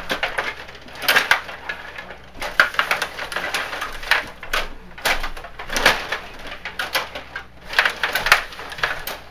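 Stiga Stanley Cup table hockey game in play: irregular bursts of rattling and clicking from the rods and plastic players being worked, about one cluster a second.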